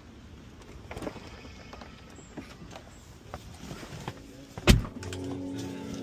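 Scattered clicks and knocks, then one loud thump of a car door shutting about three-quarters of the way in, followed by music starting up.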